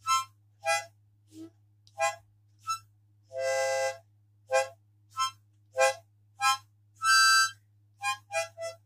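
Harmonica played in short separate puffs of notes and chords, about one or two a second, with two longer held chords about three and a half and seven seconds in.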